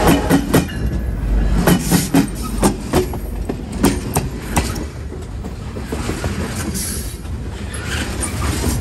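Freight train wheels rolling over the rail right beside the microphone: a steady rumble broken by many sharp metallic clicks and cracks as the wheels pass over coins laid on the rail. The cracks come thickest in the first few seconds, then thin out.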